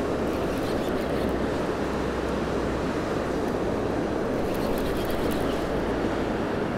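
Steady rushing of a fast-flowing river current, an even noise with no breaks.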